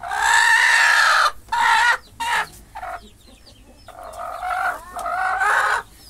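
Free-range chickens calling loudly: one long drawn-out call at the start, a couple of short ones, then another long stretch of calling near the end.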